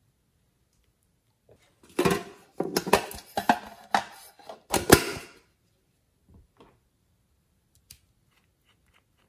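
Hard plastic container handled close to the microphone: a burst of clicks, knocks and rustling for about three seconds, then a few faint clicks and one sharp click near the end.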